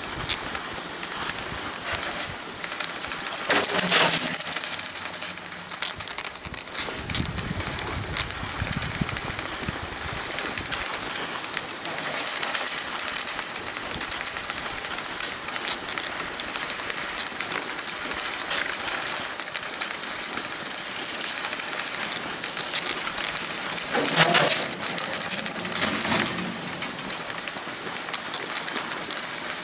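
Skis hissing steadily over packed snow while being pulled up a surface ski tow, with the tow's running rattle underneath. Two louder stretches of clatter, each a second or two long, come about four seconds in and again some twenty seconds later.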